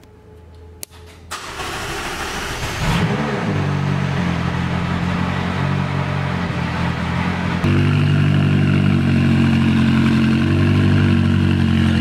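McLaren 570S twin-turbo V8 being started: a click, then the engine catches about a second and a half in and settles into a loud, steady idle, stepping up in level about two-thirds of the way through.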